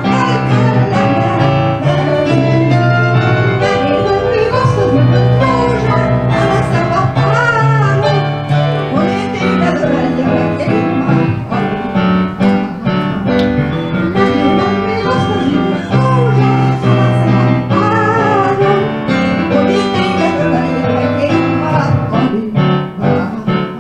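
A woman singing a Hungarian nóta (popular art song) with vibrato into a microphone, accompanied by an electronic keyboard through a PA system.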